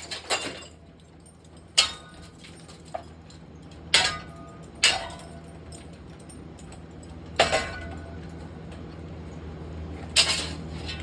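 A 2017 Harbor Breeze Barnstaple Bay ceiling fan and its glass light fixture being hit by thrown objects: about six sharp, clinking impacts spread out, each with a brief ringing tail. A steady low hum runs underneath.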